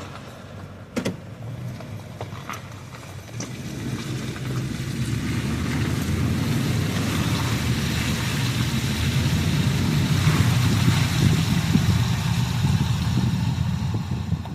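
A car pulls away and drives on, its engine and road noise building after a few seconds and holding steady. A few sharp clicks sound near the start.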